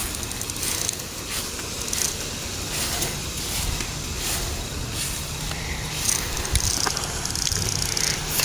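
Goodman central air conditioner's outdoor condenser unit running steadily, with wind gusting across the microphone.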